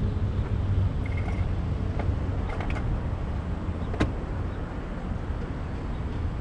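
Road traffic passing on a street: cars and a pickup going by over a steady low rumble. There are a few faint clicks and a single sharp click about four seconds in.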